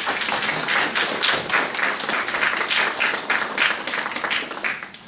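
Audience applauding, the claps falling into a steady beat of about three a second.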